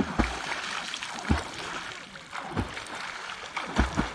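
Lake water splashing and sloshing, with a low thump about every second and a quarter as strokes go through the water.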